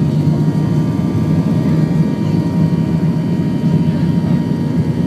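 Steady, loud rumble of an airliner's engines and rolling wheels heard from inside the cabin as the plane moves along the runway for take-off.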